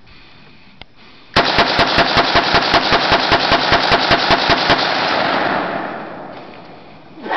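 Ruger Mini-14 rifle fired in a rapid string of about twenty shots, roughly six a second, lasting about three seconds. Its echo rolls on and fades away over the following two seconds.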